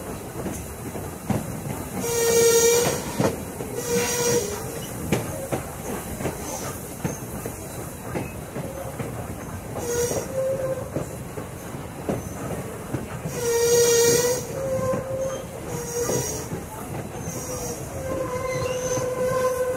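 Train passenger car rolling along the track: a steady rumble with irregular clicks of the wheels over rail joints. Several loud pitched tones, each lasting about a second, cut in about two seconds in, at about four, ten and fourteen seconds, and again near the end.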